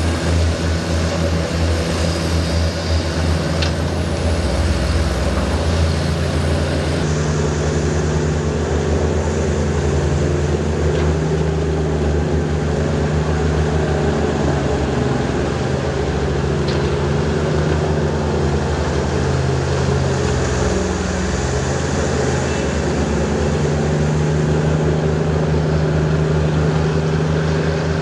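Heavy diesel engine of a Komatsu D155W bulldozer running steadily, its pitch stepping up and down a few times.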